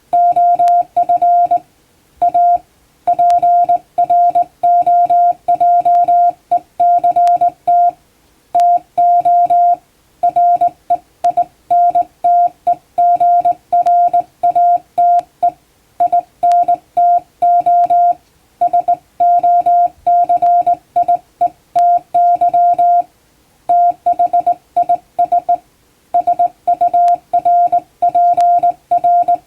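Hand-keyed Morse code in plain-language English, a CW tone keyed on and off in dots and dashes. It is one steady pitch, sent in groups with short pauses between words.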